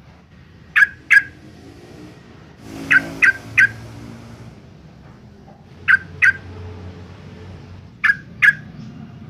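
Yellow-vented bulbul giving short, sharp call notes in quick pairs and one run of three, a new group every two to three seconds.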